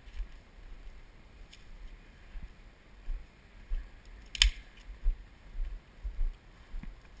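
Handling noise on a moving camera's microphone: irregular low thumps and rumbles, with a faint click about a second and a half in and a sharp click about four seconds in.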